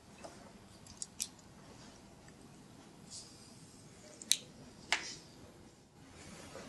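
Quiet room tone with a few short, sharp clicks and taps: a pair about a second in and a louder pair, about half a second apart, between four and five seconds in, with a soft rustle between them.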